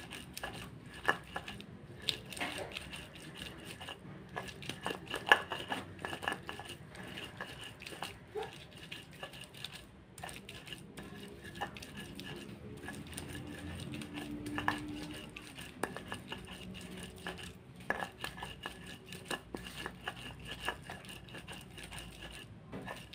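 Stone pestle (ulekan) grinding spice paste on a flat volcanic-stone mortar (cobek): a gritty scraping broken by irregular sharp knocks of stone on stone, the loudest about five seconds in.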